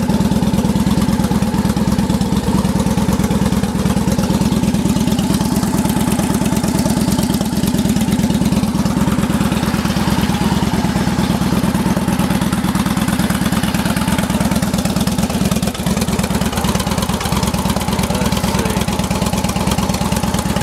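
2010 Victory 8-Ball Hammer's 100-cubic-inch V-twin idling steadily through an upgraded aftermarket exhaust that has a little volume to it.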